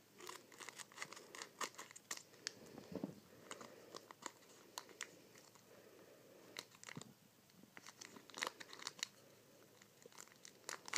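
Foil wrapper of a trading card booster pack crinkling and crackling as it is torn open and handled, a scatter of many small sharp crackles.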